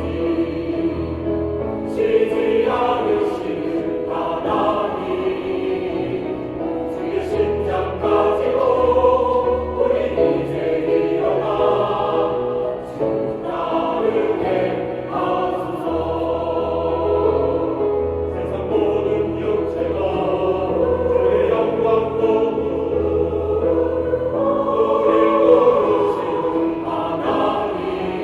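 Church choir singing an anthem in parts, full and steady throughout, over sustained low bass notes.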